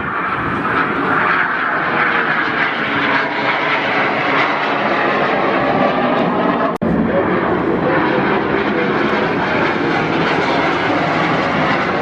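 Airplane flying past with its engine noise loud and continuous, broken by a brief dropout a little past halfway.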